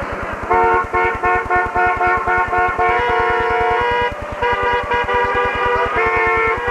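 Several car horns honking together, first in short blasts and then in longer held honks at shifting pitches.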